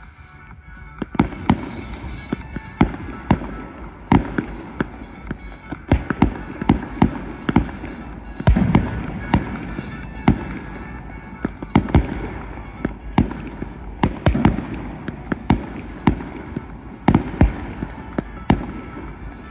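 Fireworks display: shells bursting in an irregular run of sharp bangs, about one to two a second, over a continuous low rumble and crackle.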